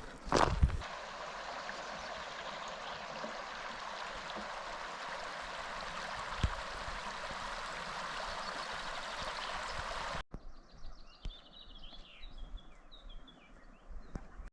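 Steady rushing of a mountain stream. It cuts off abruptly about ten seconds in, leaving a quieter background with a few short, high bird chirps.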